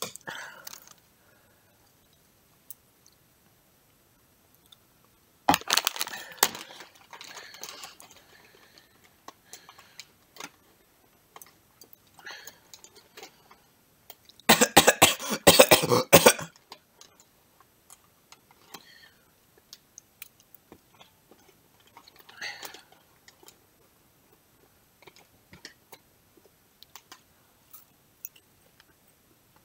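A person eating salted egg yolk popcorn: scattered small crunching and handling noises, with two loud bursts of noise about five and fifteen seconds in.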